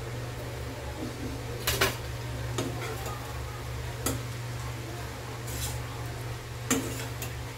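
Metal spatula scraping and knocking against a stainless-steel kadai as stir-fried noodles are tossed: about six separate strokes, the loudest just under two seconds in and another near the end. A steady low hum runs underneath.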